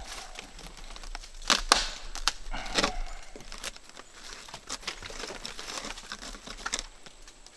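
Rotted roof plywood and asphalt shingles being torn and snapped out by hand, piece by piece: irregular cracking and crackling, with the loudest snaps about a second and a half and three seconds in.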